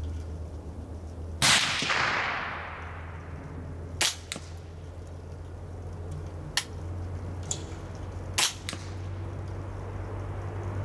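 .22 LR rifle shots. One loud crack about a second and a half in with a long fading tail, then shorter, sharper cracks roughly four, six and a half and eight and a half seconds in.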